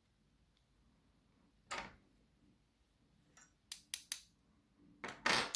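Small metal lock parts being handled: the core, pins and a flat metal tool of a dismantled DOM RS Sigma euro cylinder scrape and clink. There is a short scrape about two seconds in, three quick bright clinks around four seconds, and a longer scrape near the end.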